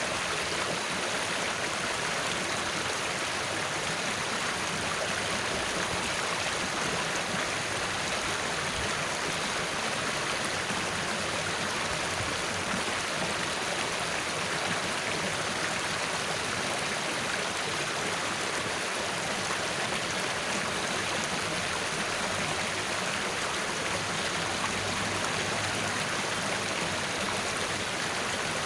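Water of a small ditch rushing and rippling steadily over its shallow bed.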